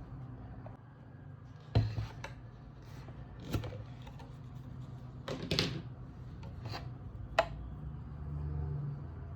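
Kitchen items being handled: a few scattered sharp clicks and knocks over a low steady hum, the sharpest about two seconds in and again near the end.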